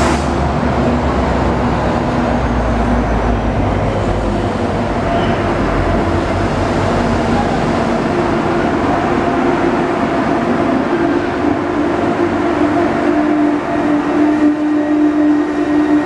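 Israel Railways diesel-hauled double-deck passenger train running past along the platform: a steady rumble of wheels on rail with a low steady hum, getting more uneven near the end.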